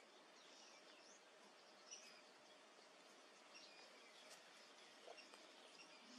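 Near silence: faint outdoor ambience with a few faint, short high chirps scattered through it.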